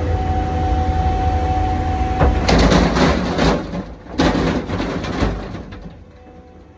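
Takeuchi skid steer's diesel engine running with a steady whine, then two loud hissing rushes of about a second each. After these the engine sound falls away, as if the machine is shut down.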